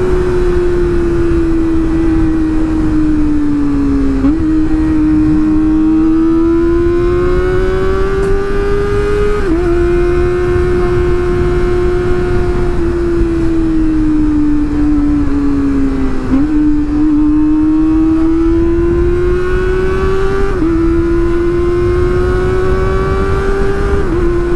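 Kawasaki sport motorcycle's engine under way, its pitch slowly rising and sinking with the throttle and stepping abruptly at about five gear changes, with wind rushing over the microphone.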